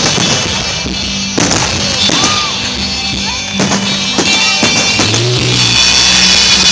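Loud music playing, with a few sharp fireworks bangs going off through it.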